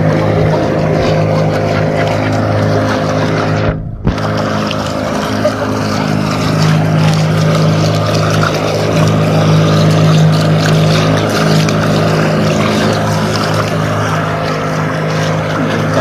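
Motorized outrigger boat's engine running steadily, with water rushing along the hull. There is a brief break in the sound about four seconds in.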